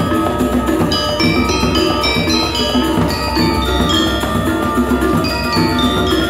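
Balinese gamelan ensemble playing: bronze-keyed metallophones struck with hammers in fast runs of ringing notes over a sustained low hum of gongs.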